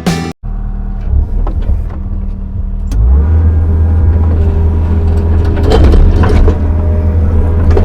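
Kobelco SK55 mini excavator's diesel engine running steadily, getting louder about three seconds in as it comes under load. From about halfway on, scattered clanks and scrapes come from the machine working dirt.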